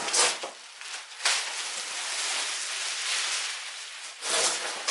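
Plastic packaging wrap rustling and crinkling as it is pulled off and handled, in a long continuous stretch after a couple of short crackles near the start, with another burst near the end.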